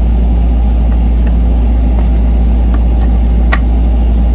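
A steady low rumble, with a few light clicks from handling the plastic tablet mount. The sharpest click comes about three and a half seconds in.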